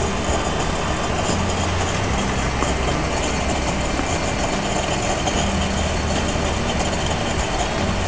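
Steady low rumble of a homemade aluminum beer-bottle alcohol stove burning on denatured alcohol under a stainless steel pot of water that is just coming to the boil.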